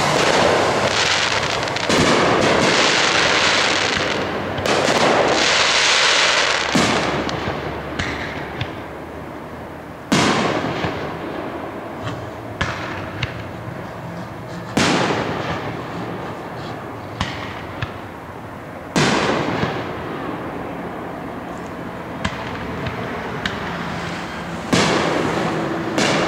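Aerial fireworks shells bursting. A dense run of overlapping booms and crackle fills the first several seconds, then single loud booms come about every four to five seconds, each trailing off, with smaller pops between.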